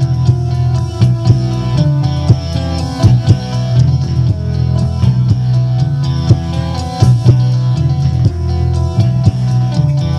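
Toshiba BomBeat WX-1 boombox playing radio music through its speakers: a song with guitar and drums over a strong bass line.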